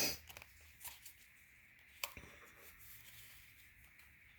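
Faint handling of tarot cards: a few light taps and rustles, with one sharper tap about two seconds in, over low room hiss.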